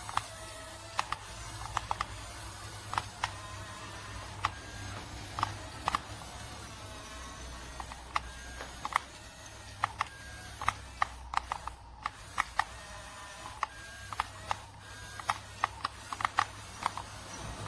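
Plastic toy mechanism clicking: irregular sharp clicks, one or two a second and some in quick pairs, over a low steady hum.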